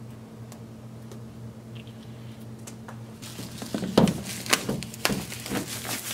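Plastic shrink wrap on a MacBook Air box being torn and pulled off, crinkling in a quick run of sharp crackles from about halfway in. Before that there are only a few faint ticks of a pen working at the wrap.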